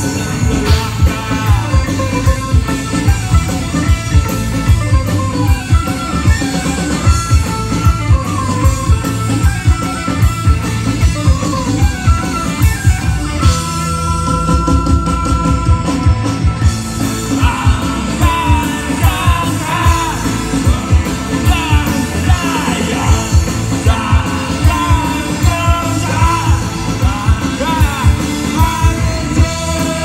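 A rock band playing live through an outdoor stage PA during a sound check: drums, electric guitars, bass and accordion, with a singer. A long held note comes about halfway through, followed by wavering sung lines.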